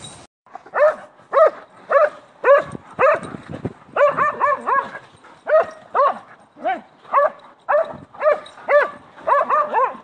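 A dog barking repeatedly, roughly two barks a second, some in quick pairs and runs, with a fast run of barks near the end.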